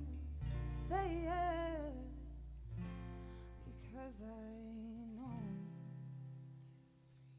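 Live band music winding down: a woman singing softly over sustained low bass notes and guitar, fading out near the end.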